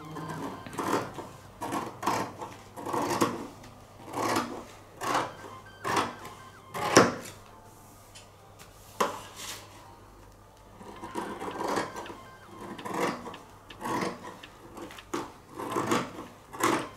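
Scissors cutting through layers of fabric: a series of snips about one a second, the loudest about seven seconds in, then a pause of a few seconds before another run of snips.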